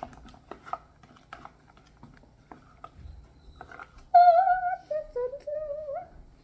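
Faint sticky clicks and squishes of slime being stirred in a bowl. About four seconds in comes a loud, high, wavering whine lasting about two seconds, which drops in pitch partway through.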